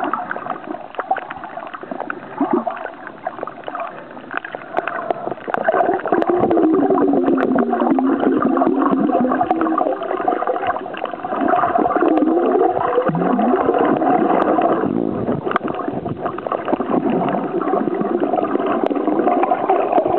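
Underwater sound on a shallow coral reef, picked up by a camera held below the surface: a steady wash of water noise full of faint clicks and crackles. From about six seconds in it grows louder, with a wavering hum that glides up and down in pitch.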